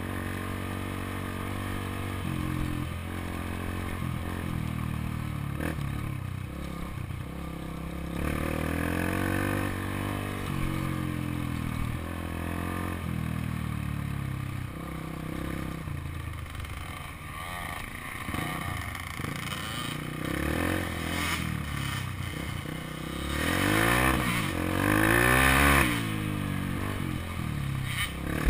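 Dirt bike engine running on a trail ride, its revs rising and falling again and again with the throttle and gear changes. The revs are loudest in two surges, one about a third of the way in and a longer one near the end.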